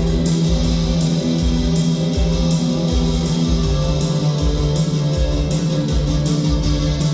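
Live band playing: amplified electric guitar and bass holding a sustained low note, over a steady pounding beat with regular cymbal-like hits.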